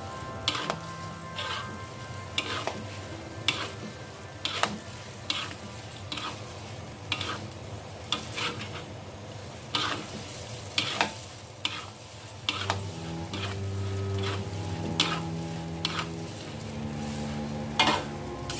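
Stir-frying in a pan: a steady sizzle, with a utensil scraping and knocking against the pan about once a second.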